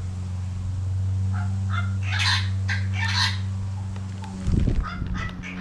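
A few short, harsh bird calls in the middle, over a steady low hum, with a brief low thump near the end.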